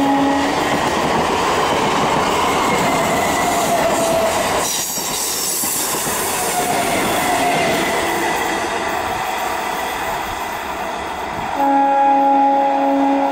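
Indian Railways EMU electric local trains: a passing train's steady running noise of wheels on rail, with brief wheel squeals on the curve. A horn blast ends about half a second in, and near the end an approaching EMU sounds a long horn blast.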